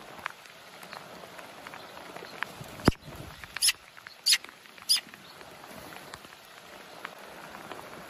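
Steady light patter of rain. Near three seconds in there is a single sharp tap, and then young magpies give three short, high, harsh calls about half a second apart.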